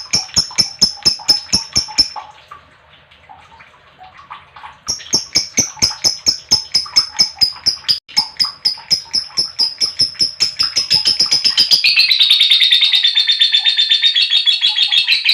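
Lovebird giving rapid trains of sharp, repeated chirps, about four to five a second, breaking off for a few seconds, then resuming and quickening near the end into a dense, lower-pitched chatter.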